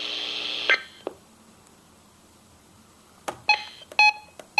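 A steady electronic hum cuts off with a click under a second in. After a quiet stretch, a quick run of short electronic beeps comes near the end, the loudest about a second before the end.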